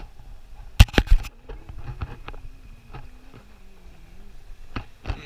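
A cluster of sharp knocks and bumps, loudest about a second in, with two more near the end: handling noise from the camera being turned around and repositioned.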